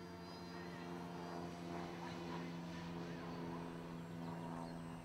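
A steady low mechanical hum at one unchanging pitch, with faint voices in the background.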